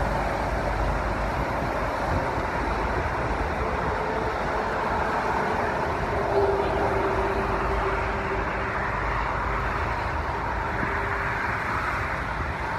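Steady road traffic noise from passing vehicles, an even wash of sound with no breaks.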